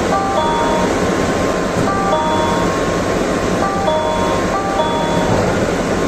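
N700-series Shinkansen smoking-room door chime: a short electronic chime of a few notes, repeating about every two seconds, over the steady rumble and hiss of the train running at speed.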